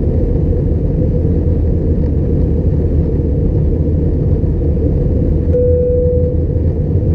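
Steady roar inside the cabin of an Airbus A320-211 with CFM56 engines, heard from a passenger seat: engine and airflow noise after takeoff. Near the end a short steady tone sounds for about a second.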